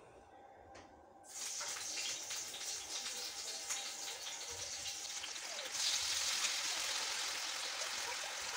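Hot oil in a frying pan sizzling as raw potato pieces for french fries are dropped in by hand. The sizzle starts about a second in and gets louder about six seconds in.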